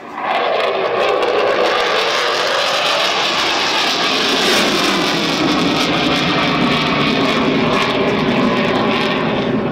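Loud, steady jet engine noise from a fast jet in display flight. It sets in suddenly just after the start and holds, its tone slowly shifting as the aircraft moves.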